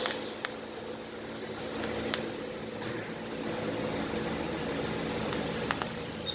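A steady mechanical hum from a running machine, with a few brief faint clicks.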